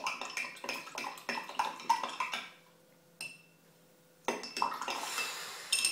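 Metal spoon stirring a spice-and-vinegar mixture, clinking rapidly against the side of its container for about two and a half seconds, then stopping briefly before more clinking and scraping near the end.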